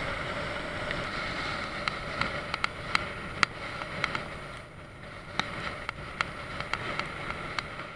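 Motorcycle riding along with steady engine and wind noise, and many sharp clicks and rattles scattered through it, the loudest about three and a half seconds in.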